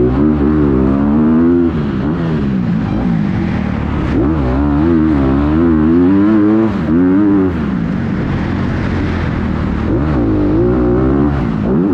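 Motocross bike engine heard up close from the rider's helmet, revving up and down over and over as the throttle is opened and closed through the corners, settling lower for a couple of seconds past the middle before climbing again.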